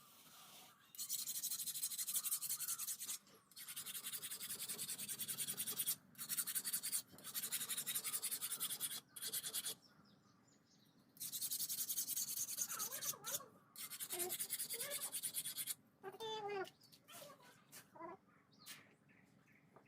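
Hand scraping of the dao handle, in long hissing strokes of one to three seconds each with short pauses between them. Birds chirp faintly in the background in the second half.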